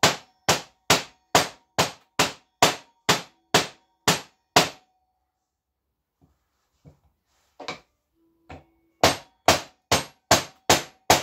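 Hammer blows on a metal hub part, steady at about two and a half a second, each with a short metallic ring, as a tight-fitting part is tapped on. The strikes stop for about three seconds midway, with one or two lighter knocks, then resume at the same pace.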